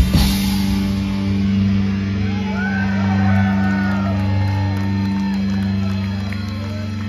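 Live black metal band ending a song: a last crash, then a low distorted guitar and bass chord held and slowly fading. A few shouts rise over it partway through.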